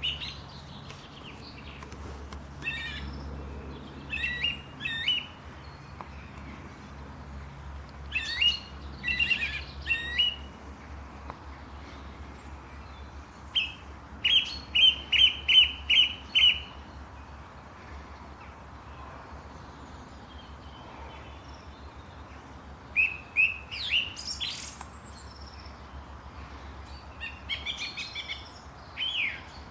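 Songbirds chirping in short, separate phrases, with one run of about eight loud, quick repeated notes in the middle. A faint low steady hum lies underneath and stops near the end.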